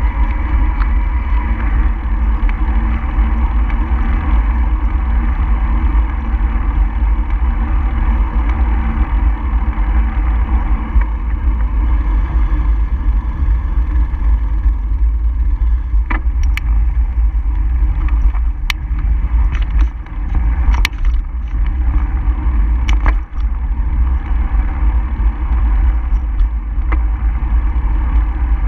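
Steady wind and road rumble on a moving camera's microphone, heaviest in the low end. A few sharp knocks come in the second half.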